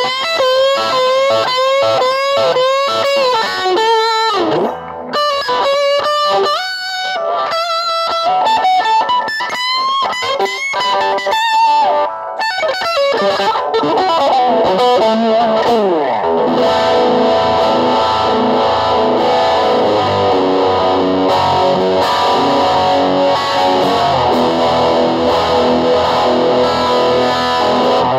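Electric guitar music: a melodic lead line of bending, wavering notes, then a downward slide about halfway through into a dense, sustained wash of many notes.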